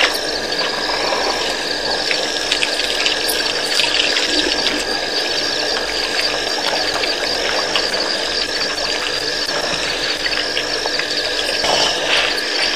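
Night chorus at a waterhole: a high trilling call repeats about every second and a quarter over a steady hiss, with water sloshing as elephants drink and a louder swish near the end.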